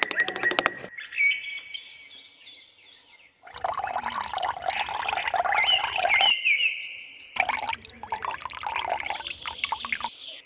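Rapid tapping of a small hammer for about the first second, then water poured from a small plastic cup into a bottle neck in two spells of about three seconds each, with small birds chirping throughout.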